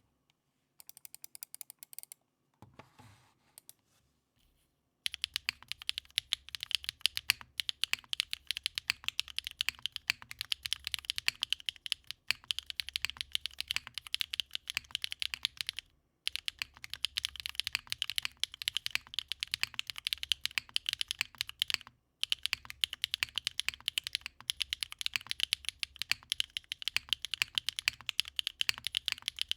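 Manta custom mechanical keyboard with HMX Macchiato V2 linear switches, a carbon-fibre plate and GMK Foundation keycaps, typed on. A few soft keystrokes come first, then fast continuous typing from about five seconds in, with a few short pauses.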